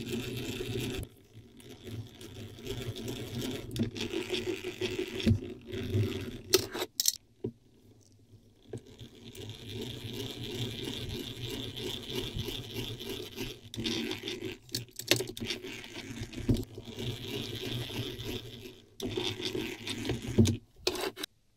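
Drill press running, a small twist bit boring into boxwood, in several stretches broken by short stops. The sound ends abruptly shortly before the end.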